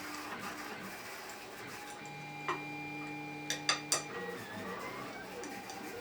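A few short, sharp clicks of small metal tools or parts being handled, over faint background music.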